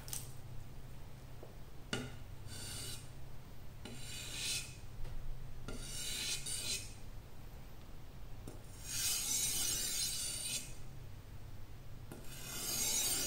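T10 steel wakizashi blade scraped in repeated strokes across a fine-grit whetstone, about five gritty hissing passes, the last two longer and louder. The point is being sharpened, blending its grind into the straight edge.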